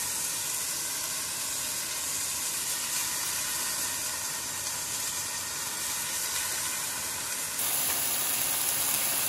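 Burger patty sizzling and steaming in a frying pan over a small propane heater, a steady hiss that gets louder about three quarters of the way through.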